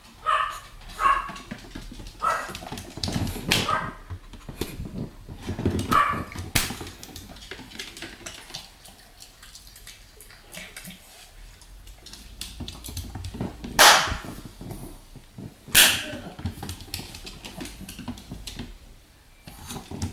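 Pomeranian giving a series of short, high barks over the first few seconds. Later come two loud, sharp hand claps about two seconds apart, a nekodamashi clap in front of the dog's face.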